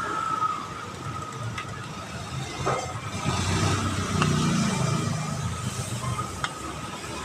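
Curry puffs sizzling in a wok of deep-frying oil, with a few light clinks of a metal skimmer against the steel wok. Under it runs a steady low engine-like rumble, which is the loudest sound.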